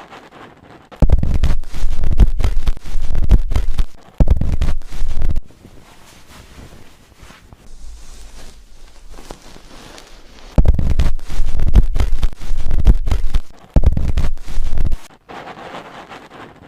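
Fingers scrubbing and massaging a shampooed head of hair close to the microphone: loud crackling and rustling in four bursts of one to three seconds, about a second in, near four seconds, from about ten and a half seconds, and near fourteen seconds, with quieter rubbing between.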